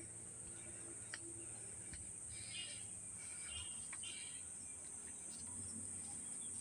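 Steady high-pitched chorus of forest insects, such as crickets or cicadas, with faint bird chirps and a couple of light footstep clicks on concrete.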